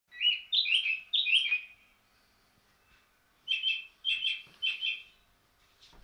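A small bird chirping: two runs of several quick, high tweets, with a pause of about a second and a half between them.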